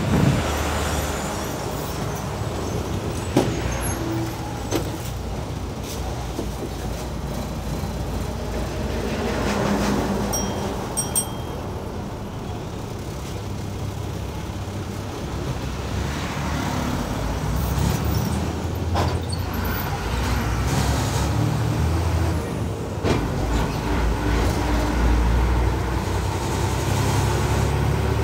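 A KSRTC Limited Stop bus running on the road: a steady engine and road rumble that shifts in pitch as it goes, with a few scattered rattles and knocks.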